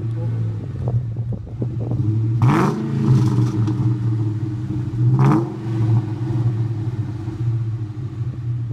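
2003–04 Ford Mustang Mach 1's 4.6-litre DOHC V8 idling through its exhaust, blipped twice, about two and a half seconds in and again about five seconds in, each rev climbing quickly and dropping straight back to idle.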